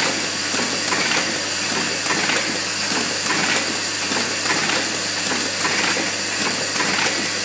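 Automatic assembly machine for flint-wheel lighter heads running: a steady hiss over a constant low hum, with a light mechanical clatter of its moving parts.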